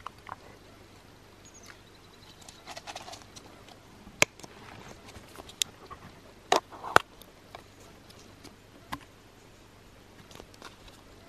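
Small plastic bait-worm tub being handled and its snap-on lid pried open: several sharp plastic clicks with soft rustling and scraping between them, the loudest clicks around the middle.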